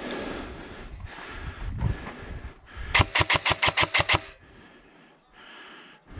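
Airsoft gun firing one rapid burst of about ten evenly spaced shots about three seconds in, over rustling noise.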